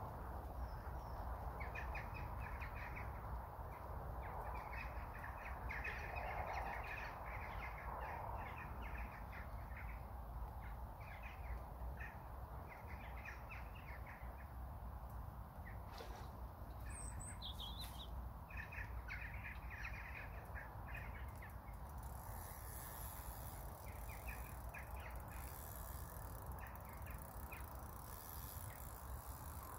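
Birds calling outdoors: runs of short, harsh, repeated calls come and go throughout, with one higher call about two-thirds of the way in, over a steady low rumble.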